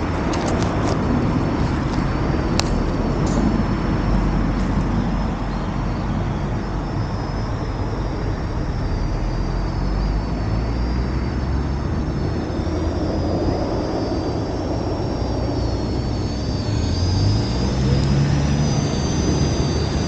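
Parrot Anafi quadcopter flying: a high, thin propeller whine that wavers in pitch, clear from about a third of the way in and growing stronger near the end, over a steady low rumbling noise. A few sharp clicks in the first few seconds.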